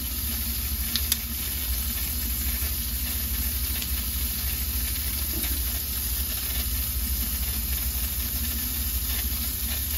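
Kitchen faucet running, a thin stream of water splashing over a lobster tail and into a stainless steel sink: a steady hiss with a low hum underneath.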